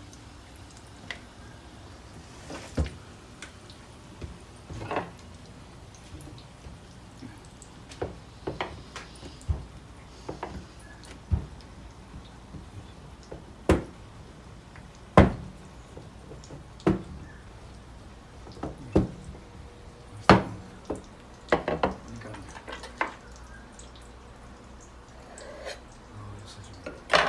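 Scattered sharp taps and knocks of kitchen utensils, a rolling pin and a knife, on a countertop as samosa dough is rolled out and cut, one every second or two.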